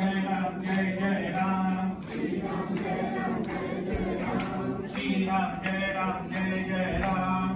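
A group of voices singing together in a chant-like style, with a steady low note held underneath for the first two seconds and again from about five seconds in.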